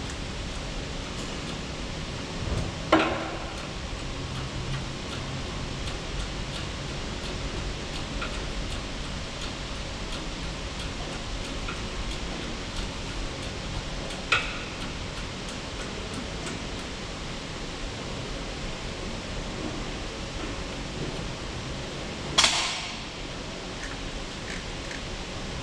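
Steady workshop background noise with three sharp metallic clinks from parts handled at a small bench press: one a few seconds in, one around the middle, and the loudest near the end, which rings briefly.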